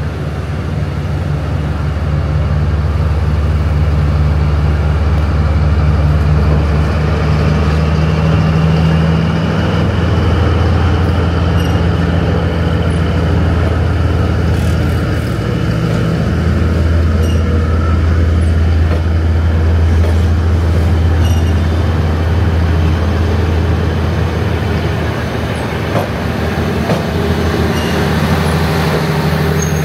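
A heavy vehicle running, a loud, steady deep rumble that swells and eases slightly.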